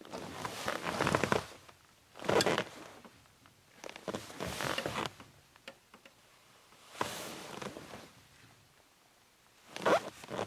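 Leather chair creaking and rustling under a person's weight as they sit down and get up, in about five separate creaks with quieter pauses between them.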